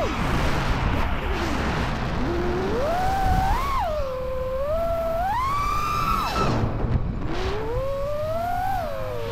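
5-inch FPV quadcopter's brushless motors whining, the pitch sweeping up and down with the throttle over rushing wind. The whine drops steeply right at the start and again about six and a half seconds in as the throttle is chopped, then climbs back.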